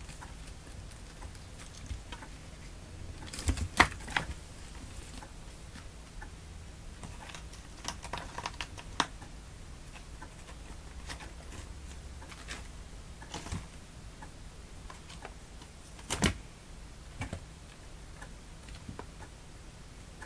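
Kittens' claws scratching and scrabbling on a corrugated cardboard scratcher, with irregular sharp clicks and taps from paws landing and pushing off. The loudest flurries come about four seconds in and again around sixteen seconds.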